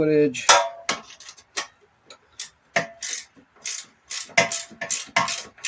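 Ratchet wrench clicking in quick, irregular bursts as bolts are tightened, in sped-up footage.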